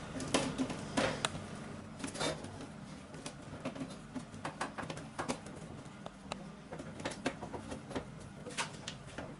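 Irregular light taps and clicks of hands pressing a flour-and-water dough seal around the lid of a metal cooking pot, closing it up so the steam stays in.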